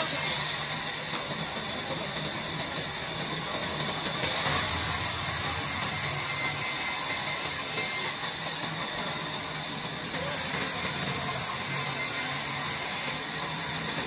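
Sawmill band saw running steadily while a wooden slab is pushed through its blade: a continuous sawing hiss over the machine's hum. The high hiss grows and eases a few times.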